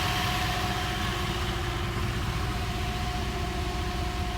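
Idling engine driving a belt-driven Sanden compressor used as an onboard air compressor, running steadily and pumping air to refill a tire. A steady tone sits over the engine's low, even rumble. The compressor has cut back in because the tank pressure fell below the on-off switch setting.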